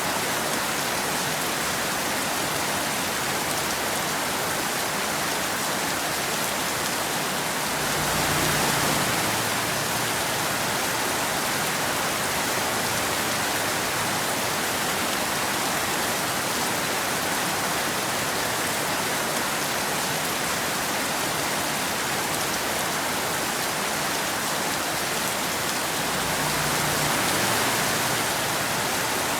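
Steady rain falling: a continuous even hiss that swells slightly twice, about a third of the way in and again near the end.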